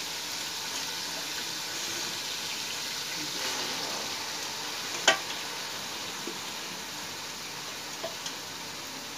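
Masala frying in oil in an aluminium kadai, sizzling steadily as pieces of boiled beef are dropped in. There is one sharp knock about five seconds in and a couple of light taps near the end.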